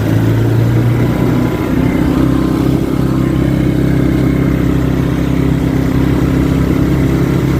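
Vehicle engine running steadily while towing another vehicle on a wire. Its pitch steps up about a second and a half in, then holds.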